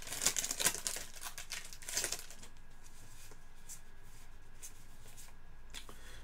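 Trading cards being handled, a burst of crinkly rustling and clicks for about two seconds, then only a few faint ticks.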